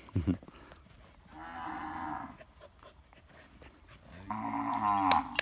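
Cattle mooing twice, each call about a second long, the second louder. A short sharp sound comes just at the start.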